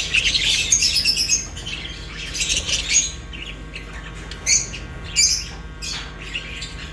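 Pet budgerigars and lovebirds chirping and squawking, a dense run of calls in the first second or so, then scattered sharper calls.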